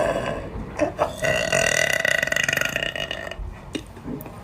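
A woman burping: one burp trails off in the first moments, then a long, drawn-out burp holds a steady pitch for about two seconds.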